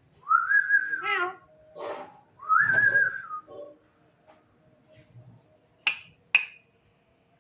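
Javan myna (jalak kebo) giving two loud arching whistles, with a short harsh note between them, followed by two sharp clicks near the end.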